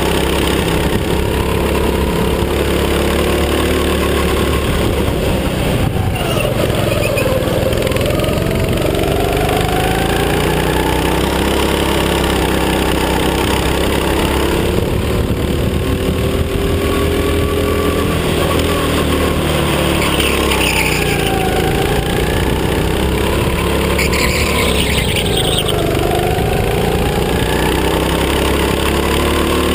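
Go-kart engine running hard, heard from on board. Its pitch dips and climbs back up several times as the kart slows for corners and accelerates out of them.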